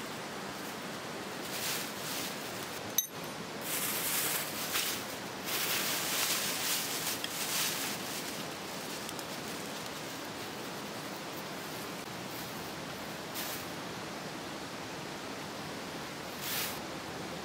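A plastic bag crinkling and dry twigs rustling as kindling is tipped out and piled up, in irregular bursts between about 1.5 and 8 seconds, with one sharp snap about 3 seconds in and two more short rustles later. Underneath, the steady rush of flowing stream water.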